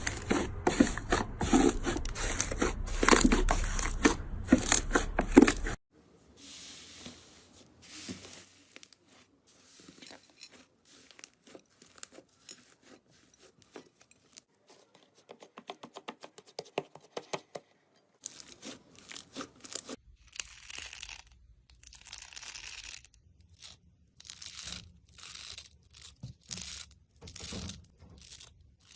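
Slime being worked by hand: stretched, pressed and pulled apart, giving sticky crackling, tearing and popping sounds. The handling is loud and dense for the first several seconds, then cuts to quieter, sparser snaps and clicks in later clips.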